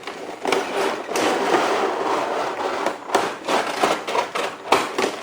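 Cardboard packaging being opened and handled by hand: rubbing and scraping of cardboard for the first few seconds, then several sharp knocks and taps.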